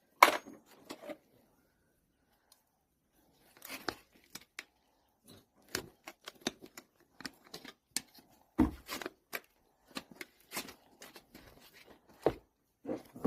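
A horseshoe being pried off a hoof with farrier's tools: irregular clicks, scrapes and crunches of metal against shoe, nails and hoof.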